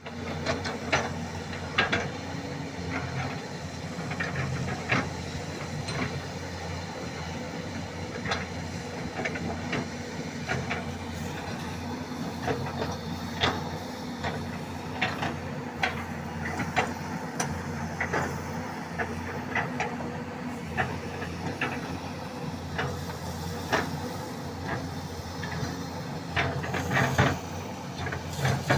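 Excavator's diesel engine running steadily, with frequent irregular sharp knocks and clicks.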